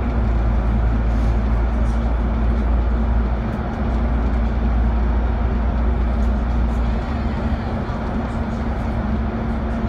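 Alexander Dennis Enviro500 MMC double-decker bus cruising through a road tunnel, heard from inside: a steady deep engine drone and hum over continuous road and tyre noise. The lowest drone eases off about seven seconds in.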